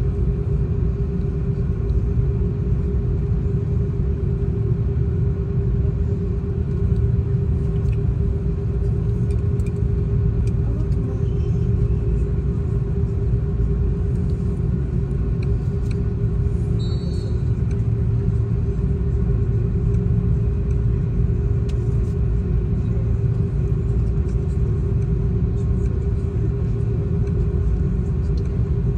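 Airbus A330-300 cabin noise on the ground, with the engines idling: a steady low rumble under a constant hum.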